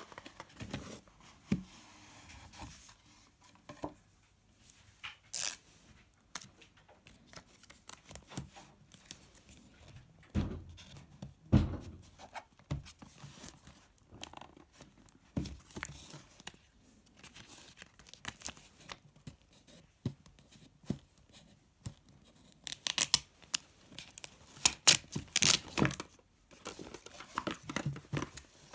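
Cardboard Samsung Galaxy S8+ retail box being handled and opened by hand: paper rubbing and scraping, a seal tab peeled and torn, and the inner box slid out of its sleeve. Two dull knocks come a little after ten seconds in, and a run of louder scrapes and clicks comes near the end.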